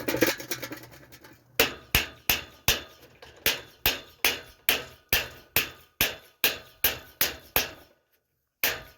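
A hammer striking in a steady rhythm, about eighteen blows at roughly two and a half a second. After a short pause there is one more blow near the end.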